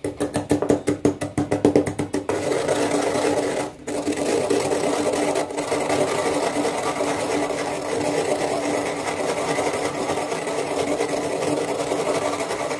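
Pestle pounding dry instant noodles in a mortar, crushing them to crumbs. Rapid knocking strikes for about the first two seconds, then a fast continuous crunching grind with a brief break about four seconds in.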